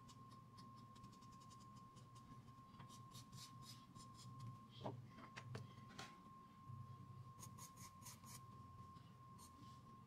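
Faint, intermittent scratching strokes of a paper blending stump and charcoal pencil on drawing paper, with one small click about halfway through. Under them runs a steady faint tone and a low hum.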